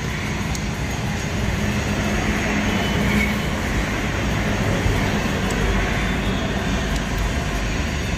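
An engine running steadily, with a few faint light metallic clicks from a spanner turning an adjusting nut on a diesel fuel-injection pump.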